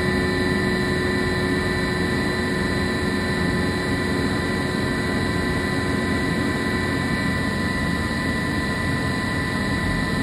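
CNC milling machine cutting a Timascus titanium pocket clip under flood coolant: a steady spindle whine with several high tones over a noisy hiss of cutting and coolant spray. A lower tone drops away about two-thirds of the way through.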